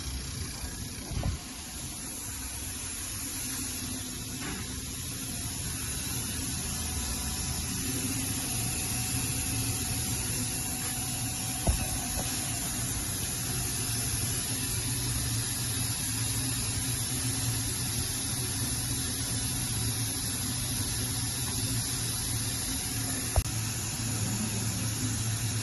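Steady machine hum with an even hiss, typical of a vertical machining center running, growing slightly louder over the first several seconds. A few sharp clicks are heard, about a second in, around the middle and near the end.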